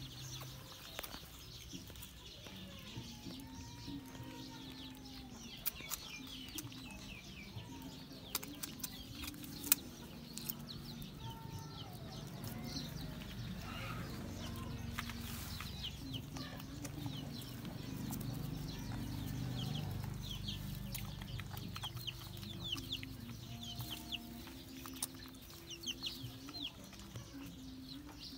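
Chickens: young chicks peeping in many short, high, falling chirps, over lower, longer clucking calls, with scattered small clicks.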